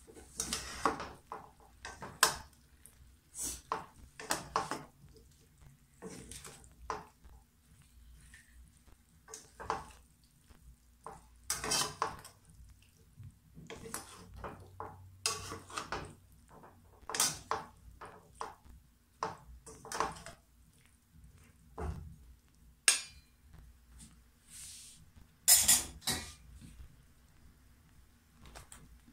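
Metal slotted spatula scraping and clinking against a wok as cauliflower florets are stirred and tossed, in irregular strokes with a few louder knocks, the loudest near the end.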